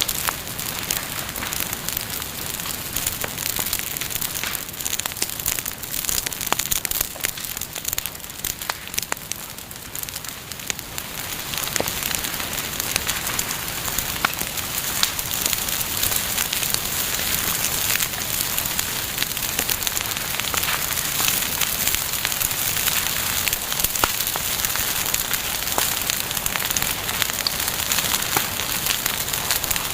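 Bonfire crackling: a steady hiss full of small snaps and pops, growing somewhat louder about a third of the way in.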